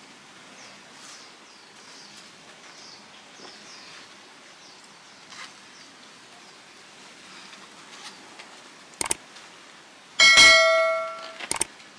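Subscribe-button overlay sound effect: a mouse click, then a bright bell ding that rings and fades over about a second, followed by another quick click.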